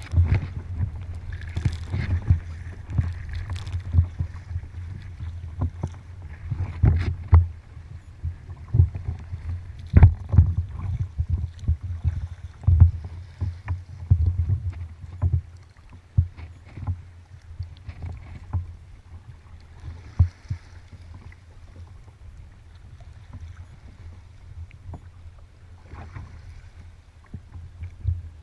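Kayak on open water: water slapping and knocking against the hull with the paddle strokes, in irregular knocks over a low rumble. The knocks are frequent and loud for about the first half, then fewer and softer.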